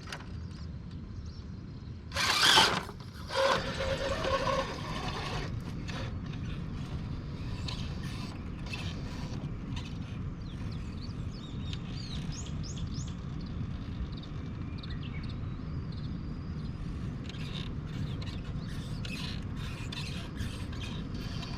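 RC rock crawler on the move: its brushless motor and geared drivetrain whir steadily under scattered clicks and scrapes. Two louder scrapes or knocks come about two and three seconds in.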